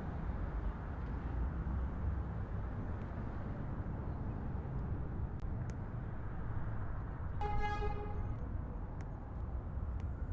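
R160A New York City subway train running, a steady rumble. A short, high-pitched tone sounds briefly about three-quarters of the way through.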